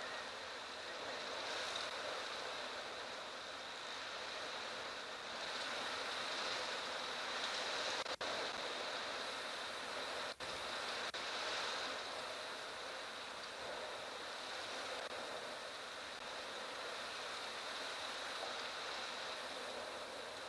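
Strong wind rushing in gusts over open savannah during a dust storm, a steady hiss that swells and eases, with a steady high tone beneath it. The sound drops out for an instant twice near the middle.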